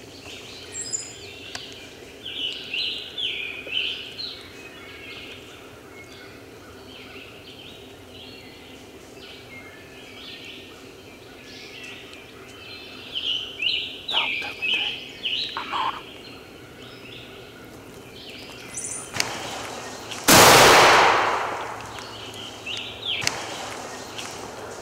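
Songbirds chirping, then about twenty seconds in a single shotgun blast, by far the loudest sound, its report dying away over a second or so.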